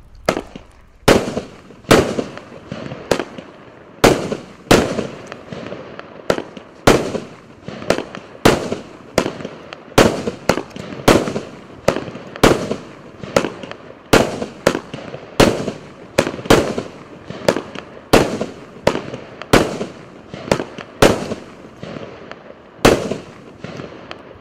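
A 16-shot, 30 mm calibre firework cake firing its shots in sequence: a string of sharp bangs, one every half second to a second, each with a short decaying tail, ending near the end.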